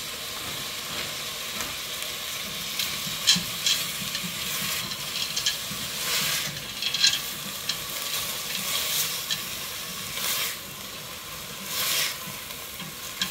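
Peas and chopped carrots and onion sizzling in hot oil in a stainless steel pot as they are sautéed, stirred with a silicone spatula that scrapes against the pot now and then.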